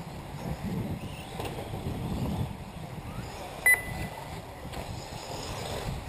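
Wind noise on the microphone over faint running of radio-controlled off-road cars on the track. A short, high electronic beep about two-thirds of the way in is the loudest sound.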